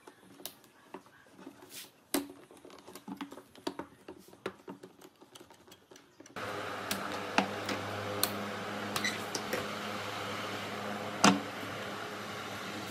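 Quick-release bar clamps being ratcheted tight on pine workpieces: a quick run of small clicks and knocks. About six seconds in, the sound switches abruptly to a steady low machine hum with a few sharp knocks over it.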